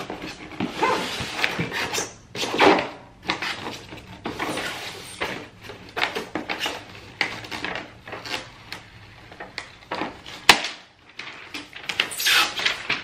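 Polystyrene foam packing and a cardboard box being handled: irregular rubbing and scraping, with one sharp knock about ten and a half seconds in.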